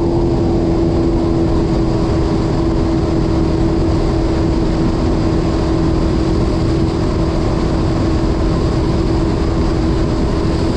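Sea-Doo FishPro jet ski's three-cylinder Rotax engine running at a steady cruising speed, holding one even note, under a steady rush of wind and water.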